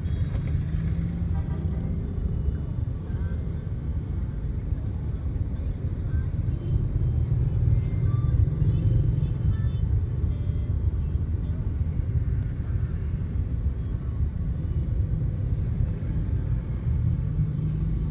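Steady low rumble of a vehicle moving slowly through busy city traffic, with road and engine noise all round.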